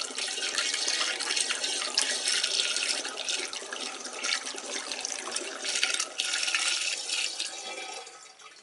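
Distillate pouring from a glass jar through a plastic funnel into an oak barrel: a steady splashing trickle that thins out and fades near the end as the jar runs empty.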